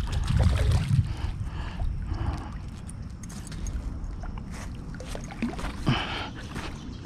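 River water splashing and gurgling as a small hooked catfish thrashes and is played in at the bank, over a low rumbling noise that is strongest in the first second.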